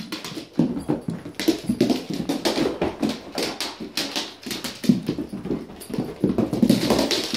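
A Doberman puppy and a small black dog playing, their claws clattering and scrabbling on a wooden floor in quick irregular clicks, with short dog whimpers mixed in.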